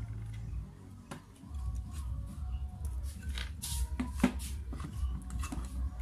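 Hands handling the housing and end cover of a half-horsepower electric water pump motor: scattered clicks and knocks of the parts, one about a second in and a cluster three to four seconds in, over a steady low rumble.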